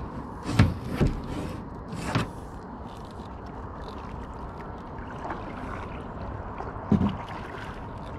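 Kayak paddling: a metal-shafted kayak paddle dipping and pulling through the water, with splashes and dripping. A few sharp knocks or splashes stand out, three in the first couple of seconds and a loud one about seven seconds in.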